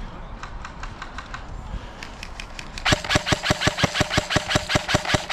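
An M4-style airsoft rifle firing a long full-auto burst, starting about three seconds in, at about seven shots a second. Faint scattered clicks come before it.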